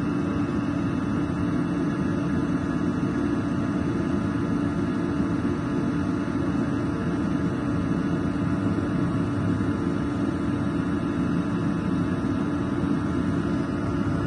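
EOGB Sapphire oil-fired boiler's pressure-jet burner and fan running steadily, a constant hum with a strong low tone. The burner is firing at a reduced pump-pressure step while its combustion is being tuned.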